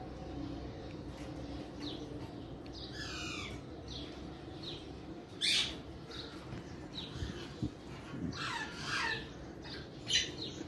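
A pet parakeet squawking: harsh, downward-sliding calls every couple of seconds, with short chirps between them. The loudest call comes about halfway through.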